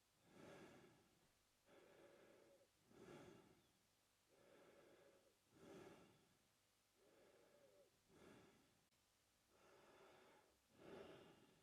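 Faint, slow, steady mouth breathing by a man, alternating in-breaths and out-breaths, about one full breath every two and a half seconds.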